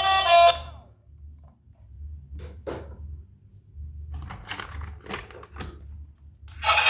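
Music ends within the first second. Then come a few light clicks and knocks of plastic toys being handled, over a low steady hum. A loud, hissy rattling noise starts near the end.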